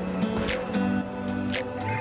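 Background music with held chords and a light beat about twice a second.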